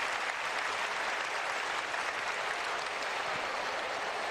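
Stadium crowd applauding: a steady wash of clapping from the stands.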